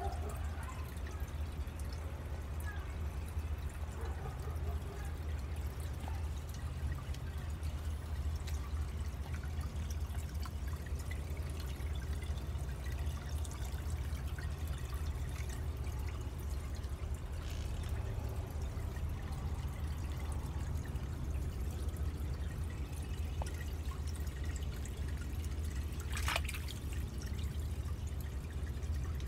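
Water trickling and dripping steadily in a small lily-pad garden pond, over a steady low hum. One sharp click near the end.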